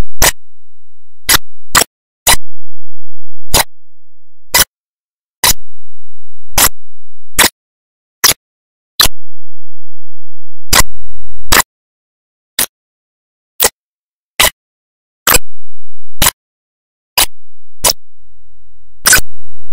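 A series of sharp, short clicks at uneven intervals, roughly one to two a second.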